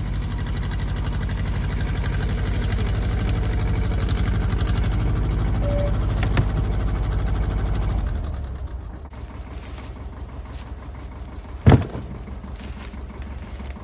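Farm tractor engine running steadily at low revs, then quieter from about eight seconds in. One sharp thump comes near the end.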